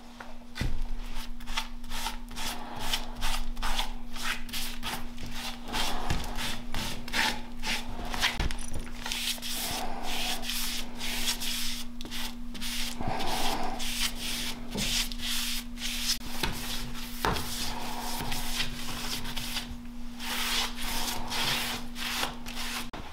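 Bristle brush stroking finish onto a wooden bed post: rapid, uneven back-and-forth scratchy strokes, with a steady low hum underneath.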